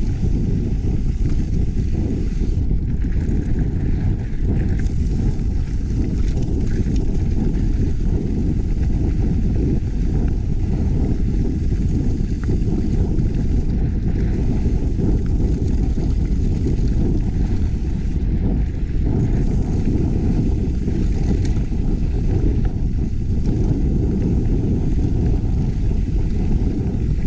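Steady low wind rumble buffeting an action camera's microphone at riding speed on a mountain bike descent, with no let-up.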